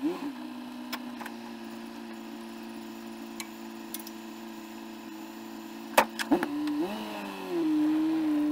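A vehicle's engine running at a steady pitch, then wavering up and down in pitch from about six seconds in, with a sharp knock just before the change.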